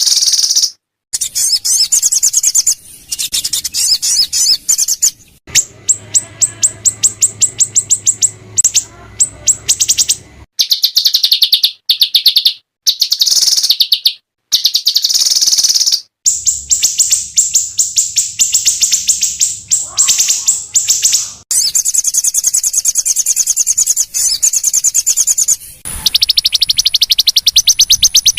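Small songbirds singing rapid, harsh trills: fast runs of high, repeated sharp notes, the 'tembakan kasar' of a masteran track. The segments are spliced together and break off abruptly several times.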